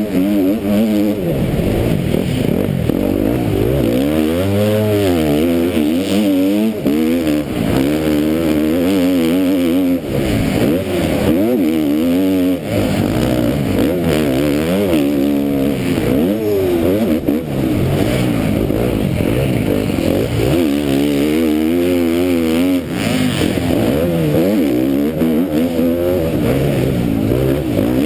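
A KTM MX2 motocross bike's engine heard close up from the rider's helmet, racing: its pitch climbs and drops back over and over, every second or two, as the throttle is opened and shut and the gears change.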